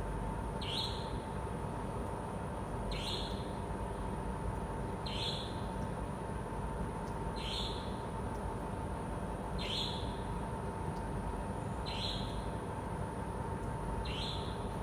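A night bird's short, high call that drops quickly in pitch, repeated at an even pace about every two seconds, seven times, over a steady electrical hum.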